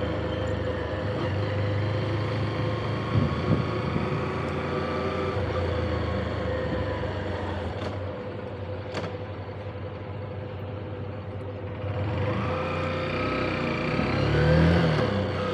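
Motorcycle engine running while riding. It eases off and drops quieter about halfway through, then rises in pitch and level near the end as the bike accelerates again.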